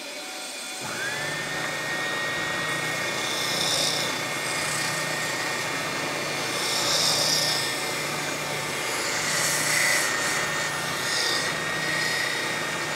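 Benchtop spindle sander starting up about a second in, its motor whine rising quickly to a steady pitch, with the hiss of wood being pressed against the sanding drum in several short passes.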